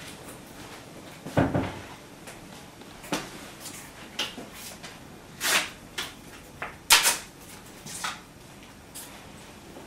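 A series of short, irregular knocks and clatters, like household doors or drawers being handled, over a low steady background. The loudest come about one and a half seconds in and again about seven seconds in.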